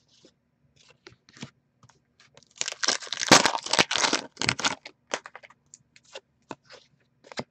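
Trading cards being handled and flipped by hand, making short scattered clicks and slides. In the middle there is a denser stretch of about two seconds of crinkling and tearing, with more clicks after it.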